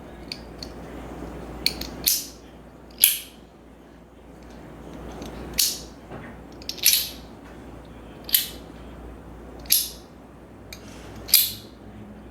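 Metal slider coin being slid back and forth, snapping into place with sharp, bright clicks about every second and a half, seven in all, with fainter ticks between.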